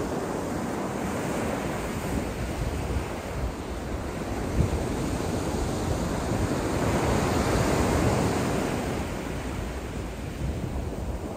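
Small surf waves breaking and washing up a sand beach, the wash swelling to its loudest about two-thirds of the way through, with wind buffeting the microphone.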